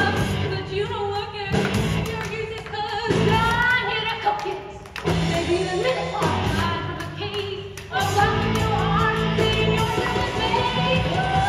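A stage musical song performed live: singing over an amplified band accompaniment with a steady bass line, getting louder about eight seconds in.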